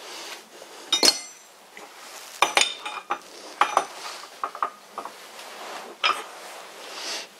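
Several sharp metallic clinks and knocks at uneven intervals as the tailstock of a vintage Karger lathe is adjusted to line its centre point up with the headstock centre.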